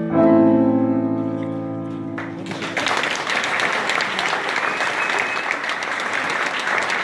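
Upright piano's final chord ringing out and fading over about two seconds at the end of a piece, then audience applause with many hands clapping.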